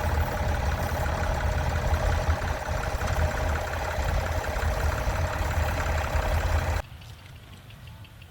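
Classic tractor engine running steadily with a low rumble; the sound cuts off abruptly to a much quieter background near the end.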